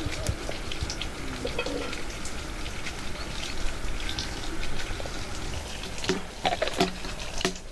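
Hot water running from a samovar's tap into a porcelain teapot, then a few sharp clinks near the end as the pot's lid is handled and set on.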